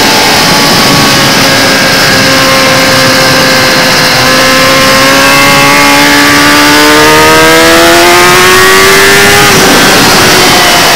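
Kawasaki ZX-10R's inline-four engine under hard acceleration, its pitch climbing steadily for about nine seconds, then dropping away sharply near the end. Heard from a camera on the bike, with heavy wind rush.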